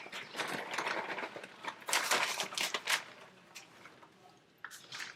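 Serving spoon scraping and clicking against a bowl and pan while scooping thick, cheesy macaroni, a rapid run of small knocks and scrapes that thins out after about three seconds, with one more click near the end.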